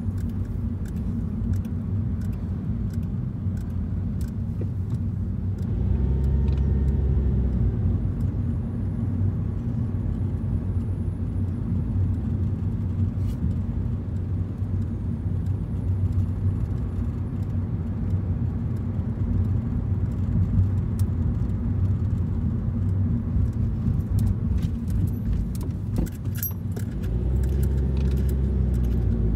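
Road noise heard inside a moving car: a steady low rumble of tyres and engine. It swells louder about six seconds in and again near the end, with scattered faint clicks and rattles.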